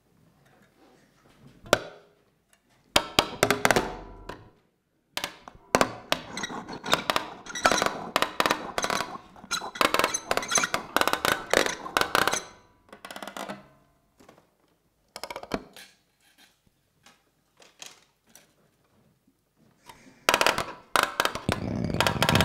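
Small tabletop objects amplified through contact microphones, handled, tapped and scraped in improvised performance: clusters of sharp clicks, knocks and clinks with quiet gaps. Near the end a denser, more continuous clatter sets in.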